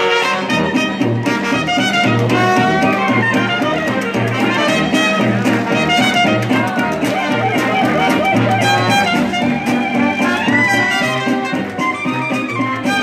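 Traditional New Orleans jazz band playing live: a sousaphone sounds bass notes steadily on the beat under a horn-led front line with clarinet and trombone, and banjo and guitar keeping rhythm.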